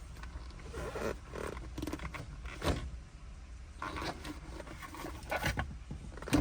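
Scraping and light knocks from a car's gear shifter being worked by hand as a titanium shift knob is fitted to the lever.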